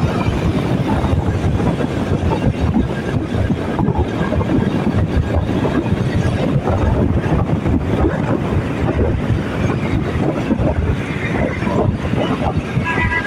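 Wind rushing and buffeting over the microphone of a moving motorbike, over steady engine and road noise.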